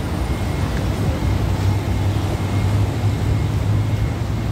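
A passenger van's engine idling, a low, even rumble that holds steady throughout.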